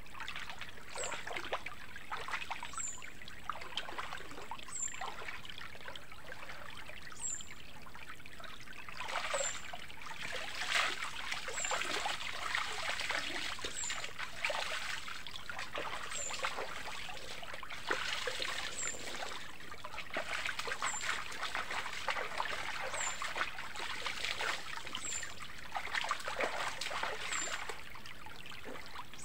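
River water trickling, with irregular louder splashing as a person wades in and bathes. A short high chirp repeats about every two seconds.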